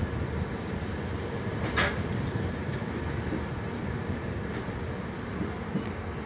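Passenger train running at speed, heard from aboard the coach: a steady rumble and rush of wheels on the track, with one sharp clack a little under two seconds in.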